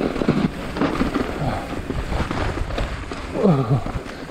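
Mountain bike rolling rough over rutted, slushy snow and onto dirt: tyres crunching and the bike jolting and rattling, with a steady rumble of wind and ride noise on the mic. Near the end comes a short vocal sound from the rider.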